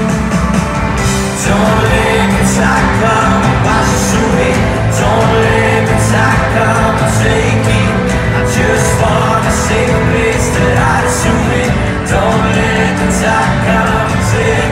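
A pop-rock band playing live through a concert PA, with drums, guitar and a male lead vocal, recorded from the audience.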